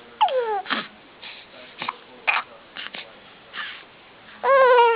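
Baby cooing and babbling: a short falling coo near the start, soft breathy sounds and small squeaks in between, and a longer coo near the end.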